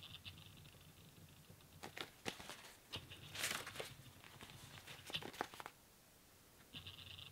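Pages of a paperback manga being turned and handled: soft paper rustles and flips, with one louder page flip about three and a half seconds in.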